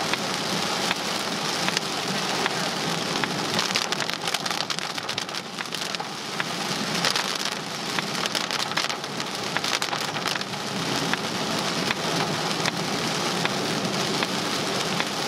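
Heavy rain pelting a moving vehicle's windshield, heard from inside the cab: a steady hiss with a dense patter of drop impacts, thickest from about four to eleven seconds in.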